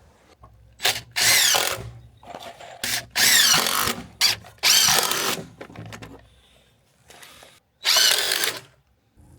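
Power drill running in four short bursts, its pitch repeatedly sagging within each burst as it drives into deck timber.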